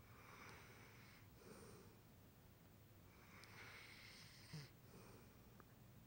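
A sleeping dog snoring faintly: two slow, drawn-out breaths, one at the start and one from about three seconds in.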